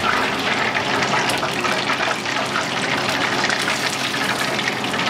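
Battered cod deep-frying in a pot of hot oil: a steady sizzle with dense crackling.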